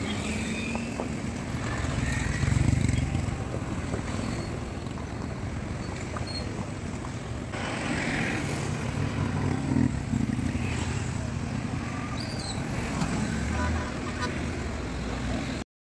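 Road traffic: motorcycles and cars going by close at hand, engines running and tyres on the road, loudest as one passes about two to three seconds in. The background changes abruptly about halfway, then the sound cuts off suddenly near the end.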